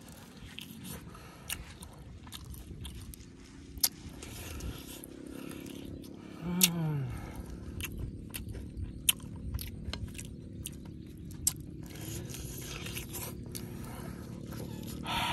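Close-up eating sounds of grilled pig tail: biting and chewing the meat off the bone, with many sharp wet mouth clicks and smacks scattered through. About six and a half seconds in comes a short hum from the eater that falls in pitch, the loudest moment.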